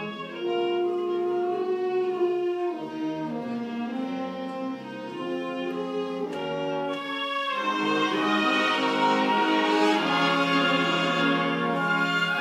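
A high school concert band plays sustained chords. The playing thins out in the middle, then swells fuller and louder from about seven seconds in.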